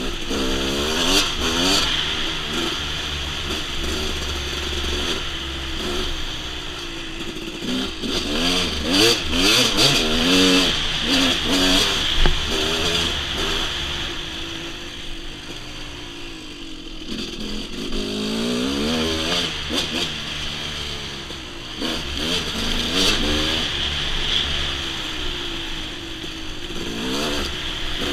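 Dirt bike engine being ridden, its pitch repeatedly rising and falling with throttle and gear changes. It eases off for a few seconds around the middle, with occasional clatter.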